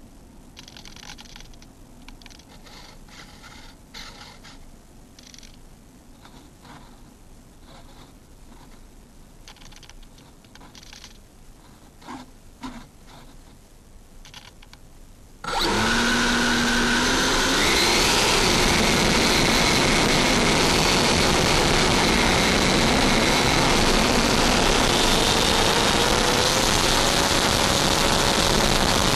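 Light rubbing and tapping sounds at first. About halfway through, the electric ducted fans of a Freewing F-5 RC jet throttle up all at once to a loud, steady rush with a whine that slowly rises in pitch: full power for the takeoff roll, heard from the model's own cockpit camera.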